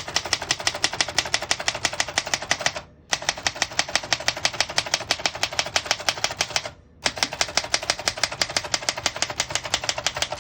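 1933 Remington Junior manual portable typewriter being typed on fast, its typebars striking the platen in a rapid, even run of sharp clacks. The typing comes in three runs broken by two short pauses.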